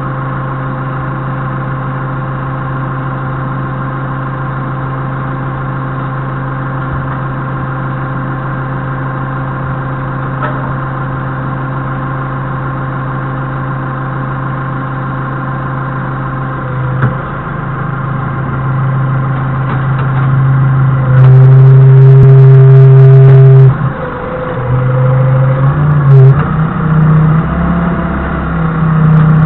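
Doosan 4.5-ton forklift engine idling steadily, then revving up and down from a little past the middle as the mast hydraulics are worked. It is loudest for about three seconds some two-thirds of the way in.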